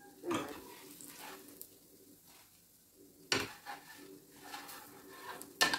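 A small metal spoon clinking and scraping against a dosa cooking in a frying pan, over a faint sizzle. A few sharp clinks, the loudest pair near the end.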